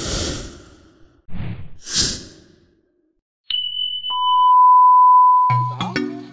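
Edited intro sound effects: a few whooshes, then a click and a short high beep, followed by a longer, louder steady lower beep. Music with a bass line comes in near the end.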